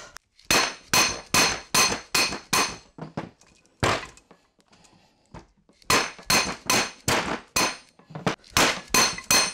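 Soft-faced mallet striking the steel lathe spindle in quick runs of about three blows a second, each blow with a short metallic ring. The blows drive the spindle out through the inner race of its taper roller bearing, which has been expanded by heating.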